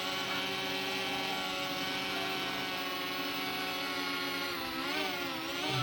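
Cfly Faith 2 quadcopter's motors and propellers whirring steadily in flight. The pitch dips and rises a couple of times near the end as the motor speed changes.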